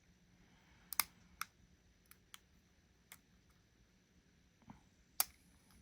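Lock pick and tensioner working the pins of a custom challenge lock: a handful of small, sharp, irregular clicks, the loudest about a second in and near the end.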